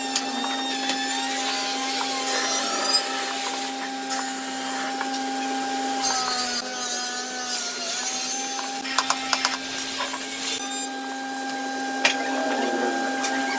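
Electric power tool motor running with a steady whine that sags in pitch about six seconds in and recovers, as if briefly under load, with scattered clicks and knocks.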